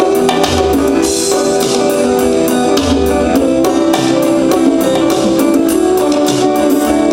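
Instrumental passage of a rock song: strummed guitar over held chords and bass notes, with a steady beat and no singing.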